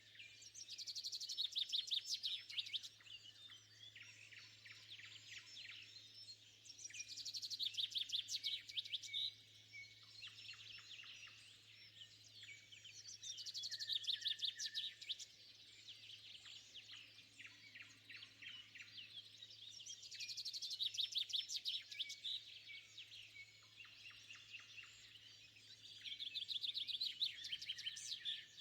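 A songbird at dawn singing loud phrases of rapid repeated notes, each about two seconds long, five times at roughly six-second intervals, with fainter bird calls in between. A faint steady low hum lies underneath.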